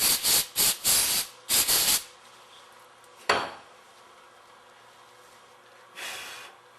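Aerosol can of solvent cleaner sprayed in four short hissing bursts in the first two seconds, then a single sharp click a little after three seconds and a brief faint hiss near the end.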